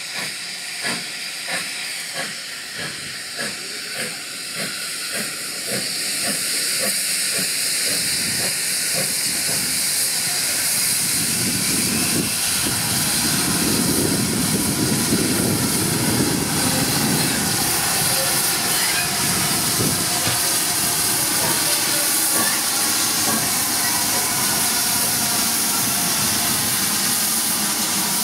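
GWR 5600 class 0-6-2T steam tank locomotive No. 5643 working slowly with a train. Quick, regular exhaust chuffs are heard at first. From about six seconds in, a steady hiss of steam grows louder as the engine draws near.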